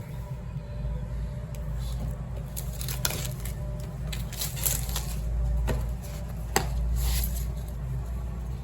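Handling of a smartphone's retail box and packaging during unboxing: scattered sharp clicks and taps, with short rustling and sliding sounds, over a steady low rumble.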